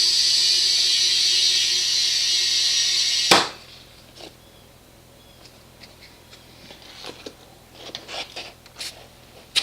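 Compressed air hissing steadily through an air chuck into a lawn mower tire as it is inflated, cut off with a sharp click a little over three seconds in. Faint scattered clicks and handling knocks follow.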